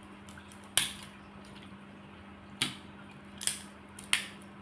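Cooked crab shell cracking and snapping as it is pried and picked apart by hand, four sharp cracks at uneven intervals.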